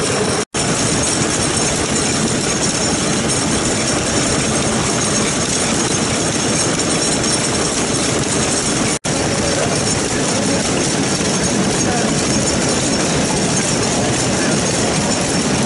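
Small Yanmar marine diesel engine running steadily. The sound drops out for an instant twice, about half a second in and about nine seconds in.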